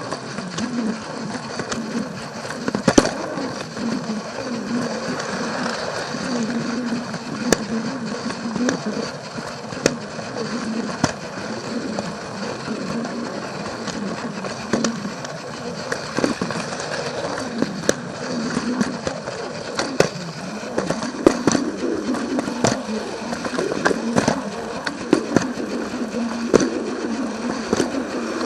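Plarail toy train running on plastic track: a steady rolling rattle with irregular sharp clicks from the wheels passing over the rail joints.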